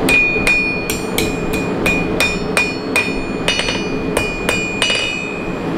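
Blacksmith's hammer striking a red-hot steel rod on an anvil, about three blows a second, each blow leaving the anvil ringing.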